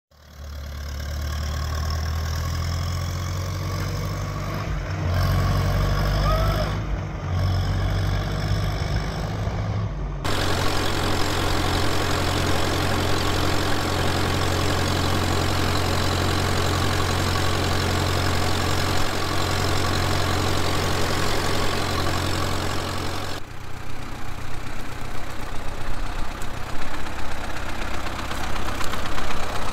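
1942 Silver King Model 41 tractor engine running, in three takes that change abruptly about ten and twenty-three seconds in; in the last one the loudness rises and falls unevenly.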